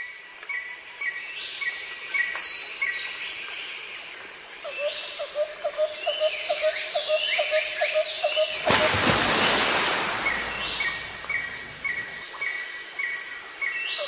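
Several birds chirping and calling, with short repeated chirps and quick falling notes, and a run of rapid chirps, about three a second, in the middle. About nine seconds in, a loud rushing noise covers them for a second or two.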